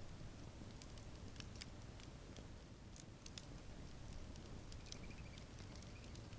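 Wood campfire crackling softly: scattered sharp snaps and pops, irregularly spaced, over a low steady rumble of burning. A faint, brief high chirp comes about five seconds in.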